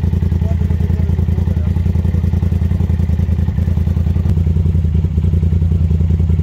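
An off-road vehicle's engine running steadily close by: a loud, low, rapid even pulsing that holds its pitch.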